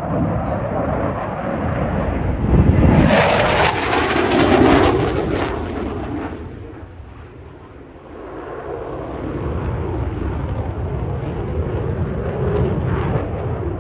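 Military fighter jet making a low display pass: loud jet engine noise with a deep rumble. It peaks about three to five seconds in with a harsh crackle, fades for a moment, then swells again as the jet comes back around.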